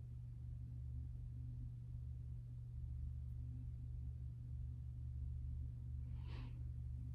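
Quiet room tone with a steady low hum, and one short soft breath about six seconds in.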